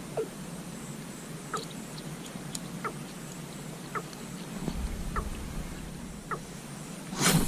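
Short, sharp chirping animal calls at irregular intervals over a steady outdoor hiss. A low rumble comes in about two-thirds through, and a loud rush of noise starts just before the end.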